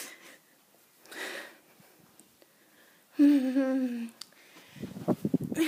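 A short breath or sniff, then a girl's voice holding one slightly falling note for about a second, like a hum, which is the loudest sound. Near the end come low rustling bumps.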